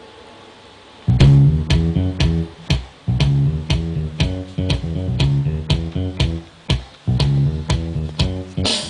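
Funk music with a plucked bass-guitar and guitar riff in a steady rhythm, played through a Technics SC-CH505 mini hi-fi system's speakers and air-coupling woofer, with heavy bass. It starts about a second in, after faint hiss.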